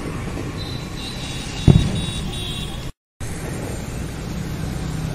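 Steady rumble of motor scooter and motorbike traffic, with a single sharp firecracker bang about one and a half seconds in. The sound drops out for a moment near the middle, then the engine rumble carries on.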